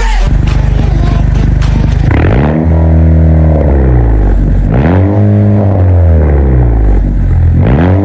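Straight-piped Chevrolet Malibu engine idling, then revved three times, each rev climbing in pitch and falling back to idle over about two seconds. The last rev begins near the end.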